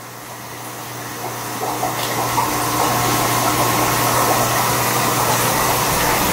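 Steady rush of running water with a low hum underneath, building up over the first two seconds and then holding.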